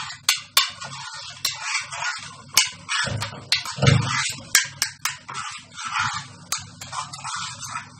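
Kitchen handling noise: a run of clicks and light knocks with scraping between them, as a metal baking tray and utensils are handled. A duller thump comes about four seconds in.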